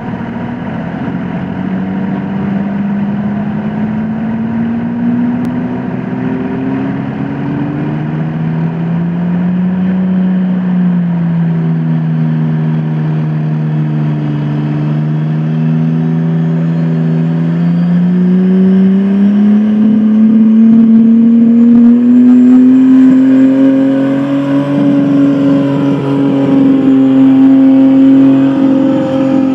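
Turbocharged 300-cubic-inch straight-six of a 1970 Ford F-500 truck running hard under load as it pulls a weight sled. The engine note climbs at first, drops lower about eight seconds in and stays down for a while, then climbs again and holds high toward the end, with a faint high whistle rising over it in the second half.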